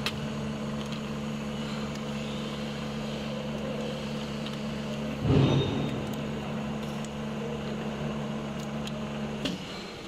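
Steady motor hum from the syringe plugging machine, stopping shortly before the end with a few light clicks. A short loud burst of noise about five seconds in.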